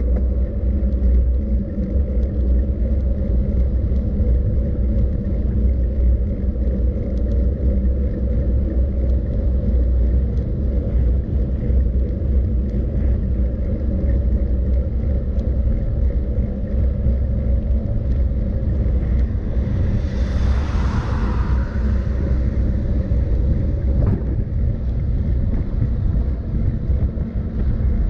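Steady low rumble of travel along a road. A louder hiss swells and fades about twenty seconds in, and a single short knock comes a few seconds before the end.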